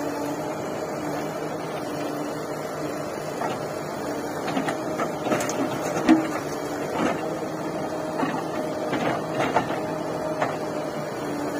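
Diesel engines of a JCB 3DX backhoe loader and a tractor running steadily. From about three seconds in there is a run of knocks and clatters, loudest about six seconds in, as the backhoe bucket dumps mud into the tractor trolley.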